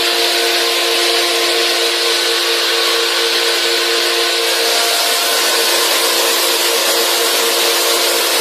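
Industrial air-handling machinery running: a loud, steady rush of air with a steady hum of several tones, from a blower feeding large ducts and a flexible hose.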